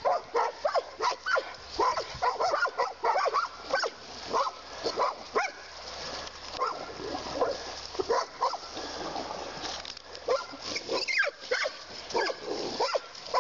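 Dogs barking and yelping while fighting a coyote, in quick runs of short, sharp calls that ease off for a few seconds midway and pick up again.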